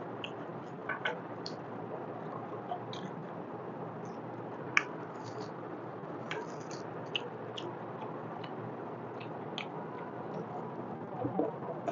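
Close-miked eating sounds: wet chewing, lip smacks and squishy noises of mutton trotter curry and rice eaten by hand and gnawed off the bone, as short scattered clicks over a steady background hiss. The sharpest smack comes about five seconds in.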